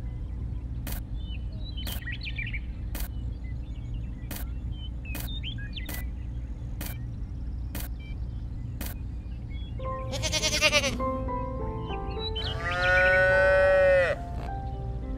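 Background music with a steady ticking beat about once a second. About ten seconds in an animal bleats briefly, then a louder, longer bleat follows near the end.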